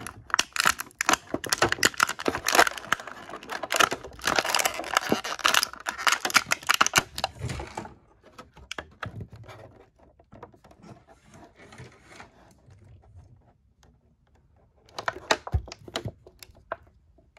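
Clear plastic action-figure tray crinkling and crackling as it is handled. A fast run of sharp crackles lasts about eight seconds, then there are only faint rustles, then a short burst of crackling comes near the end.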